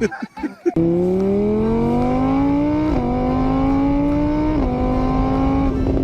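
A motor vehicle's engine accelerating through the gears. Its pitch climbs steadily, drops at a shift about three seconds in, climbs again and drops at a second shift, then holds steady.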